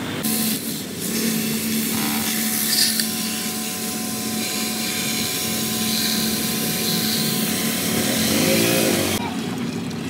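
Pressure washer running: a steady motor hum under a hiss, changing abruptly about two seconds in and again near the end.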